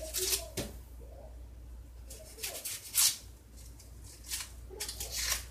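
Dry, papery onion skin crackling and tearing as it is peeled off with fingers and a kitchen knife, in several short irregular bursts.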